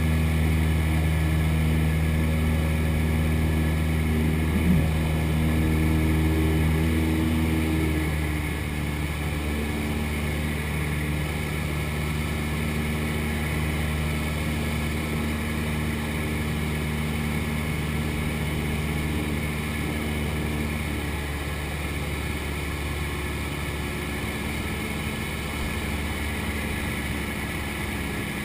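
Cessna 172's piston engine and propeller droning steadily, heard in the cabin. About eight seconds in the engine note drops lower and a little quieter, as when power is eased back, and holds there.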